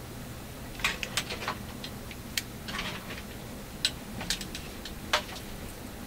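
Handling noise from fingers working thin wire strands and cable: a scatter of small sharp ticks and short rustles, irregularly spaced, some in quick pairs.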